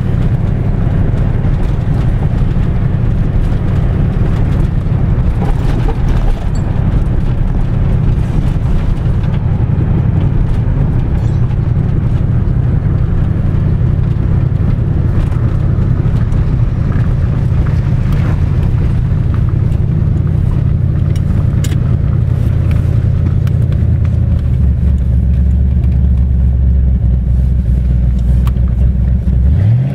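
1989 Ford Mustang GT's 5.0 V8 running steadily with a low rumble. A deeper drone comes in for the last few seconds, and the engine's pitch rises and falls once right at the end.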